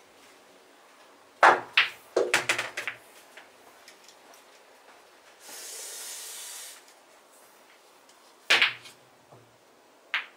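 Pool cue striking the cue ball and billiard balls clacking into one another on a pool table: a loud clack about a second and a half in, then a quick run of lighter ball-on-ball clicks. A second shot lands about eight and a half seconds in with a few more clacks, and a short hiss comes between the two shots.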